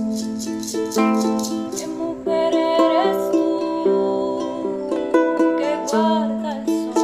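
Ukulele strumming chords, with a voice singing a melody over it in the middle stretch.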